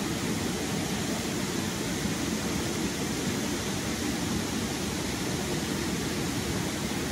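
Stream water rushing steadily over rocks, an even, unbroken rush.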